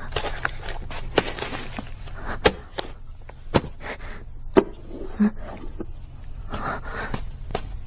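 Things knocking and sliding on wooden shelves as they are rummaged through: a string of sharp knocks and clatters with rustling between.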